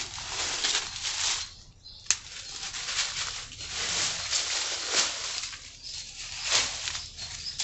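Mango tree leaves rustling in gusts of wind, the rustle swelling and fading about once a second, with one sharp click about two seconds in.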